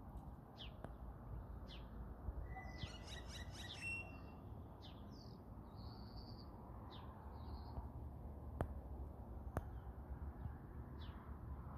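Small birds chirping: scattered short high chirps, with a quick warbling run about three seconds in, over a low steady background rumble.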